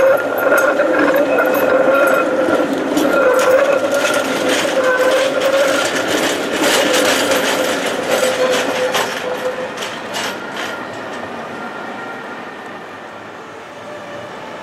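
Tatra tram passing close through a curve. Its wheels whine with a wavering tone and clatter over the track points and joints. The sound fades away after about ten seconds.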